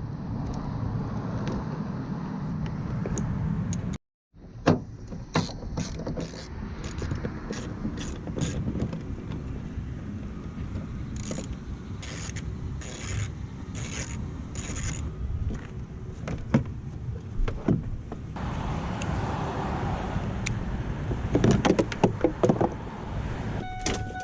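Clicks, scrapes and rattles of a car tail light bulb and its plastic lamp housing being handled and fitted, over a steady low rumble.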